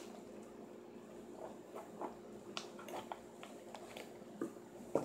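Scissors snipping and working at a paper padded mailer: scattered faint clicks of the blades and rustles of the envelope.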